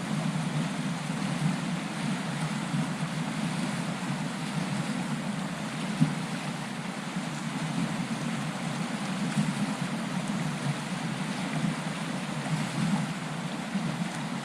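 Steady rushing of a trout stream's flowing water, with one sharp click about six seconds in.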